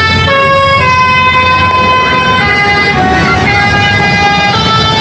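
Putra Pelangi bus's telolet horn, a multi-tone musical horn, playing a tune of held notes that switch pitch every half second to a second and a half, over a low rumble.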